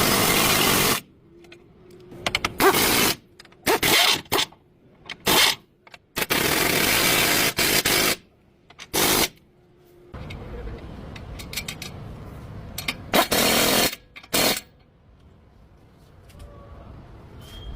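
A power tool run in hard on-off bursts: several short blips and three longer runs of about two seconds each, with quiet gaps between.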